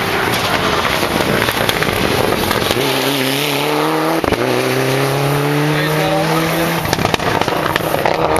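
Rally car driving past at full throttle, its engine note rising steadily as it accelerates, over a loud roar of road and engine noise. A single sharp crack about four seconds in.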